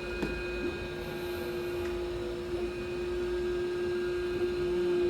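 Miwhole window-cleaning robot's suction motor running with a steady hum at one constant pitch.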